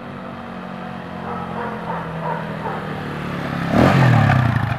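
Small motorcycle engine approaching at low speed and passing close by, getting louder until it goes past near the end, its pitch dropping as it passes.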